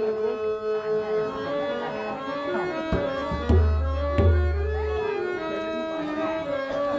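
Instrumental bhajan accompaniment with no singing: steady held melody tones over hand-drum strokes, with a few sharp, deep drum strokes around the middle.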